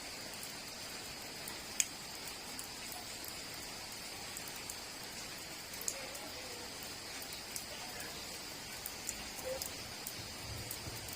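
Steady rain falling, a constant hiss with scattered sharp drips and taps.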